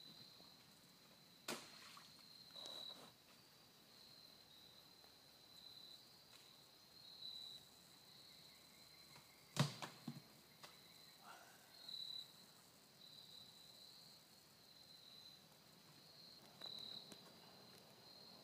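Faint woodland ambience: a steady, high insect trill with a slight pulse, broken by a few sharp clicks or snaps, the loudest about halfway through.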